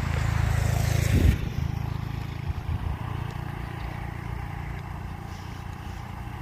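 Truck diesel engine running on a steep climb. It is loudest just after a second in, with a hiss that cuts off suddenly, then goes on lower and steady.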